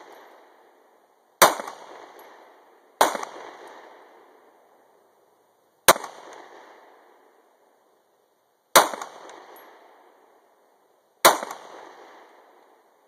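Five single shots from a Glock 19C, a 9mm pistol with a ported barrel, fired at uneven intervals of roughly one and a half to three seconds. Each shot is a sharp crack that trails off in an echo over about a second.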